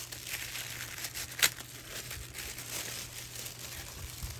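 Metallic wrapping paper and tissue paper crinkling and rustling as a gift is unwrapped by hand, with one sharp snap about a second and a half in.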